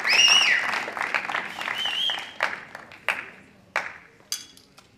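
Spectator applause with a couple of short high cheers, dying away into a few scattered single claps.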